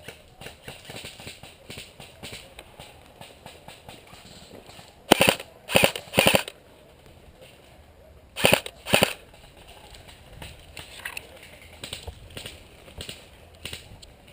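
Airsoft gun firing five short bursts of rapid shots: three in quick succession about five seconds in, then two more about two seconds later.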